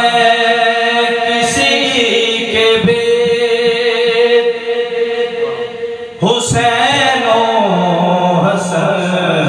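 Solo male voice singing an Urdu naat into a microphone, drawing out long, ornamented held notes. The voice eases off briefly about six seconds in, then comes back strongly.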